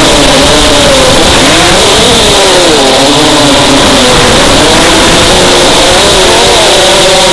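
FPV racing drone's electric motors whining in flight, the pitch rising and falling over and over, over a steady loud hiss.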